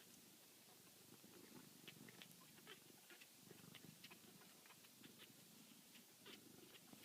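Tiny kitten purring faintly, a low pulsing hum in waves, with small irregular clicks scattered through it.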